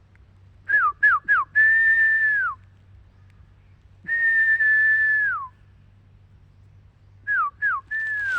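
A person whistling to call dogs: three short falling whistles and one long held note, another long note about four seconds in, then two short whistles and a long one near the end, each long note dropping in pitch as it ends.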